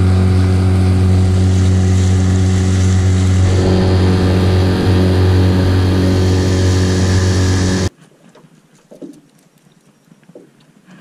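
Boat motor running steadily under way, a loud even engine hum. About eight seconds in it cuts off suddenly, leaving near quiet with a few light knocks.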